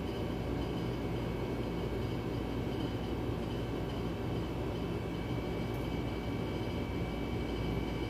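A steady mechanical drone: a low rumble with a faint high-pitched whine over it, unchanging.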